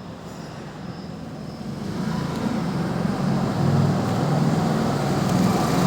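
A motor vehicle's engine running, growing louder over the first two seconds and then holding steady.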